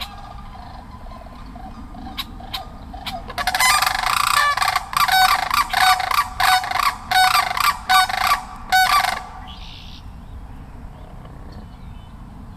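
A pair of sandhill cranes giving a unison call. A few separate calls come first, then about five seconds of loud, rapid calls from both birds, which stop about nine seconds in.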